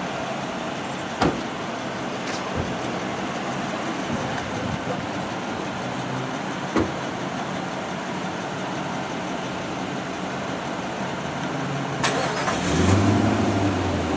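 Steady road traffic and vehicle engine noise, with a few sharp clicks and a louder low hum coming in near the end.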